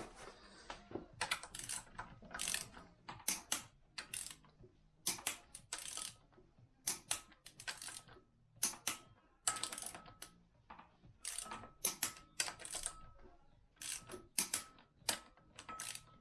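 Ratchet torque wrench clicking in short repeated bursts of metallic clicks, about one burst a second, as the flywheel bolts are tightened down.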